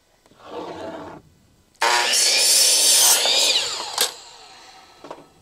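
Electric miter saw starting suddenly and cutting through a wooden board for about two seconds, then winding down with a falling whine, with a sharp clack near the end of the cut. A briefer, quieter sound comes about half a second in.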